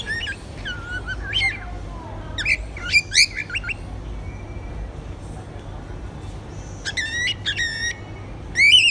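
Budgerigar chirping in short clusters of quick rising and falling notes: once near the start, again about two and a half seconds in, and after a pause of about three seconds a louder run near the end.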